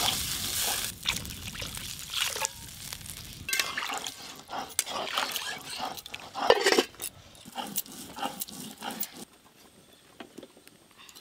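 Water poured into a hot aluminium wok of fried potatoes and green beans, so the sizzle of the oil fades out over the first few seconds. Then a spatula stirs and knocks in the watery pan, with scattered clicks, before it goes quiet. The water goes in so the vegetables can boil for a fish curry.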